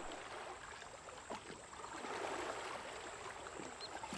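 Shallow river water softly splashing and sloshing around an elephant calf lying in it, stirred as an adult elephant's trunk nudges it, over a steady low rush of flowing water.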